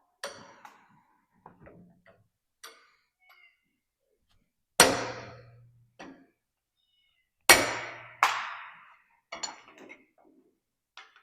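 Metal clanks and knocks: a few loud, sharp impacts, each ringing away over about a second, with lighter knocks between them.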